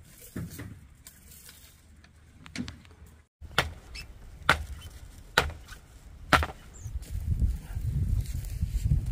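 A series of sharp chopping strikes on wood, the strongest four coming about a second apart, followed near the end by a low rumbling noise.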